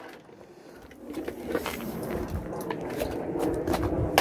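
Footsteps scuffing and grinding across a gritty concrete yard, with small clicks throughout and one sharp clack at the very end.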